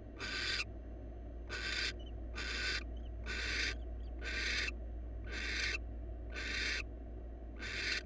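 Barn owl giving a steady series of short, harsh hissing calls, about one a second.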